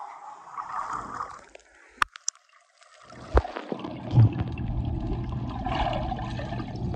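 Pool water sloshing and gurgling around people exercising in it. About 2 seconds in there are two sharp clicks. From about 3 seconds in, a steady low rumble runs under the water noise.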